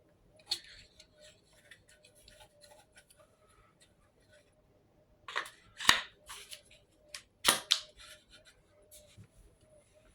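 Sharp metallic clicks and knocks of an AR-style rifle being handled: a short click about half a second in, a cluster of clicks around the middle, and two loud clicks a little later.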